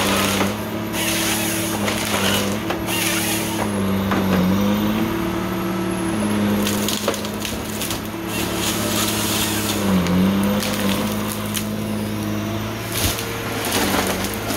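Tigercat 855 harvester's diesel engine and hydraulics running steadily, the engine pitch sagging briefly twice under hydraulic load. Over it, the Log Max 7000XT processing head grips and feeds logs, with repeated bursts of cracking and splintering wood and a few sharp knocks.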